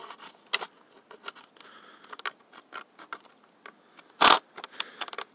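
Fingers scraping and clicking at the plastic battery compartment of a toy truck, picking at a rusted spring battery contact that is not making a good connection. A quick run of small clicks and scratches, with one louder knock a little past four seconds in.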